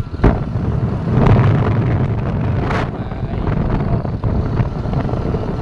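Wind buffeting the microphone on a moving motorbike, over a steady low rumble of the ride along the road.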